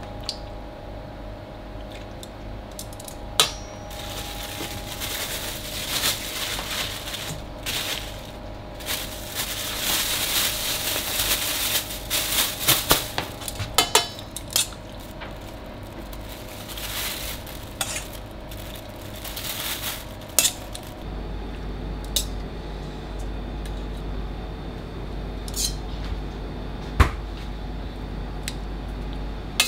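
Steel kitchen tongs clinking and scraping against stainless steel mixing bowls as raw chicken livers are picked out, with bursts of rustling from plastic wrap and paper towel. A steady kitchen hum runs underneath.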